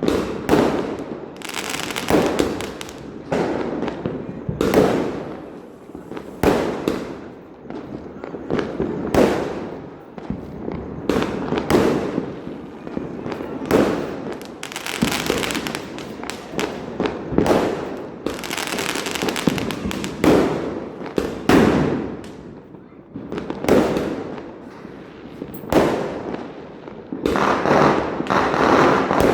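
Diwali firecrackers and fireworks going off, bang after bang, about one every second or two, coming thicker near the end.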